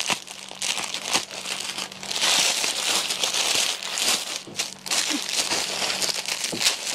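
Plastic packaging crinkling and rustling as garments are handled, in irregular bursts that grow louder from about two seconds in.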